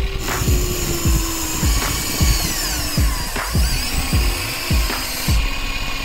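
Electric motors and gearboxes of a Huina remote-control toy excavator whirring as its boom and bucket move. The whirring starts just after the beginning and stops shortly before the end, over background music with a steady beat.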